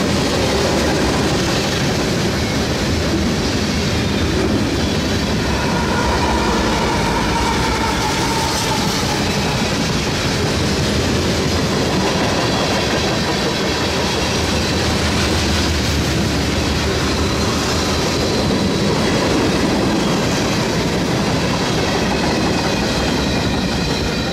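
Freight cars (tank cars, flatcars and covered hoppers) rolling past close by, with a steady rumble and clatter of steel wheels on the rails. A faint wheel squeal rises briefly about six seconds in.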